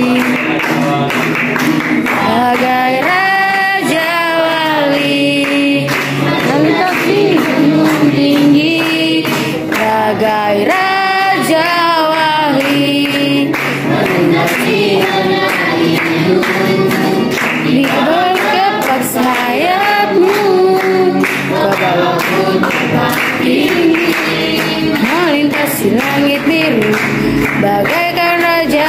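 A group of voices, children among them, singing a worship song together to a strummed small acoustic guitar, with hand clapping on the beat.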